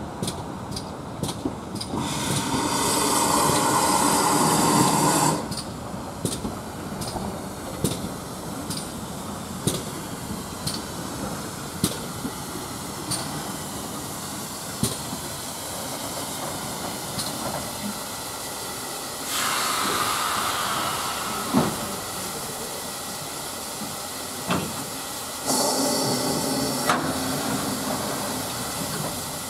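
GWR 1366-class 0-6-0 pannier tank No. 1369 running slowly into a station with its coaches. Sharp wheel clicks over the rail joints come further apart as it slows. Three loud bursts of steam hiss break over them: one about two seconds in lasting some three seconds, a shorter one around twenty seconds, and one near the end.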